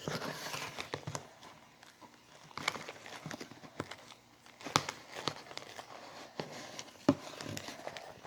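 Foamy fluffy slime of glue, shaving cream and borax activator being worked and mixed, giving scattered short sticky clicks and crackles.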